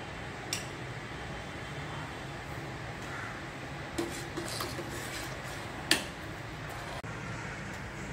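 A steel spoon stirring milk in a steel pot as it curdles with vinegar into chenna, clinking against the pot a few times, with the sharpest knock about six seconds in. A steady low hiss runs underneath.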